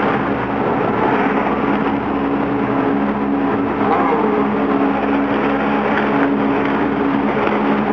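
Several DTM touring cars with 4.0-litre V8 engines running in a line along the straight, a loud steady engine drone with a short rising note about four seconds in.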